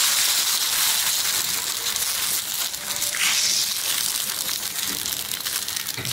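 Rice batter and egg sizzling in a hot appam pan as the pan is swirled to spread the batter; the hiss slowly dies down, with light crackling near the end.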